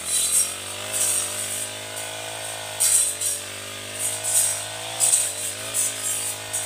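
Four-stroke brush cutter running with a round saw blade fitted, cutting through dense shrubs. The engine note dips and recovers as the blade takes load, with about six short, loud swishes as it bites into the brush.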